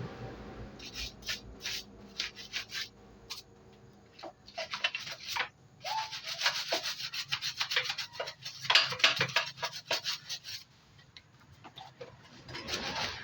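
Rapid rubbing or scrubbing strokes on a hard surface, coming in quick irregular bursts, with short lulls about four seconds in and again near the end.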